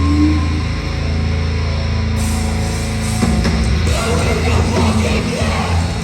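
Heavy hardcore/metal band playing live: loud distorted guitars and bass holding a heavy riff, with the full band and shouted vocals coming in about three seconds in.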